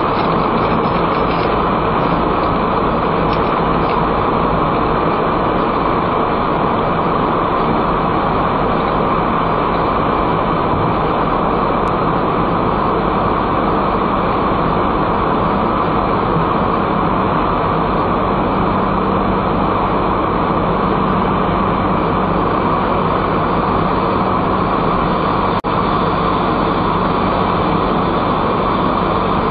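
Steady road and tyre noise with engine hum from a car cruising through a road tunnel, heard from inside the cabin. There is a momentary dropout once near the end.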